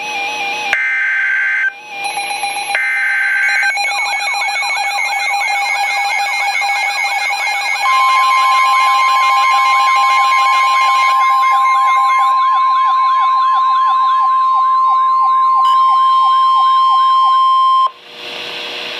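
NOAA Weather Radio alert for a severe thunderstorm warning: about four seconds of short buzzing SAME data bursts, then a weather radio's warbling siren alarm sweeping up and down about twice a second. About eight seconds in, the steady 1050 Hz warning alarm tone joins it and holds for about ten seconds, then both stop abruptly and a brief hiss follows.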